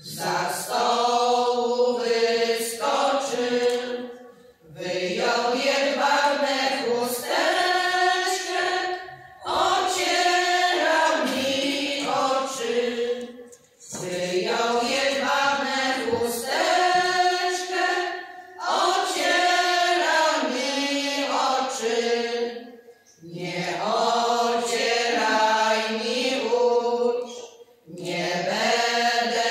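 Women's folk choir singing a Polish folk song unaccompanied, in sustained phrases a few seconds long, with a brief breath between each.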